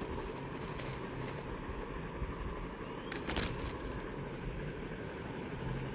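Short rustles of clear plastic sleeves as small artworks are handled, twice: about half a second in and again around three seconds in. Under them runs a steady low background rumble.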